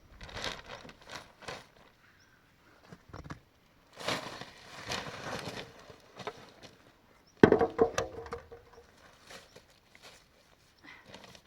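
Hand work with wood: rustling and scraping, then one loud knock about two-thirds of the way through that rings briefly.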